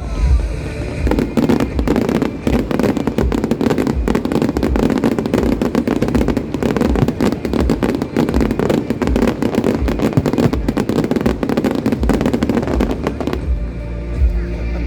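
Aerial fireworks barrage: a dense, rapid run of bangs and crackling over deep booms, thinning out about a second before the end.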